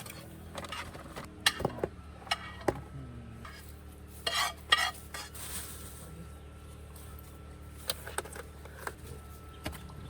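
Camp cooking clatter as smoothie ingredients are put together: utensils and containers clinking and knocking, with scattered sharp taps and a louder cluster of knocks midway, over a faint steady hum.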